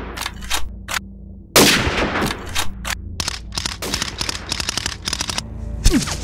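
Gunfire sound effects. A loud single rifle shot with a long echoing tail comes about a second and a half in, followed by rapid bursts of automatic fire at roughly six shots a second and a low thump near the end.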